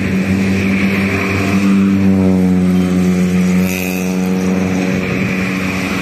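A motor vehicle engine running close by, a steady low hum whose stack of tones swells and sinks slightly in pitch between about two and five seconds, as a vehicle does when passing.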